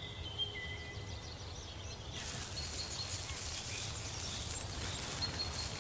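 Forest ambience: faint thin whistled calls at first, then from about two seconds in a steady, even, high insect hiss with a faint high tone, over a low rumble.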